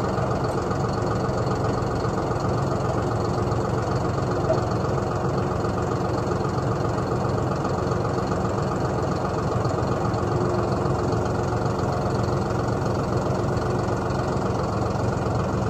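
John Deere compact tractor's diesel engine idling steadily.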